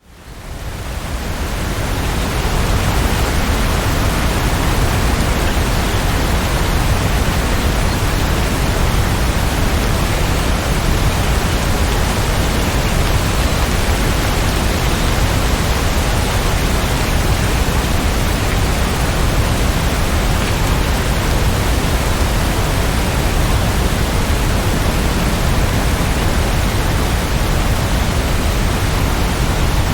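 Steady rain, a dense even hiss with no separate drops or thunder, fading in over the first two seconds.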